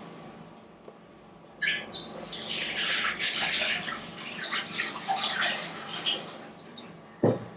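A click, then a few seconds of wet, hissing, crackling noise from the freshly cooked prawn curry in its pan, fading out, followed near the end by a single sharp knock.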